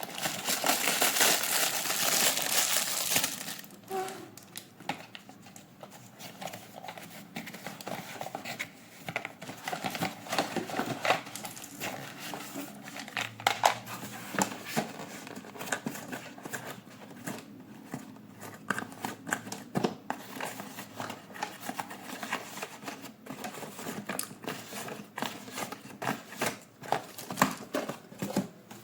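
Packaging crinkling loudly for about the first three seconds, then scattered clicks, taps and rustles of toy parts and packaging being handled.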